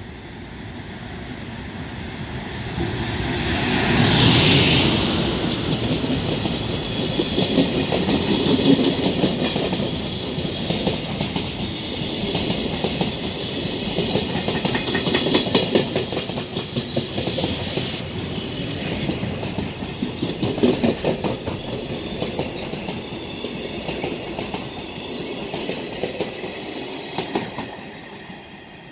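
JR Freight EF510 electric locomotive passing at speed with a high-speed container freight train, followed by a long string of container wagons whose wheels clickety-clack over the rail joints. The sound swells to its loudest as the locomotive goes by about four seconds in, holds steady as the wagons pass, and fades near the end.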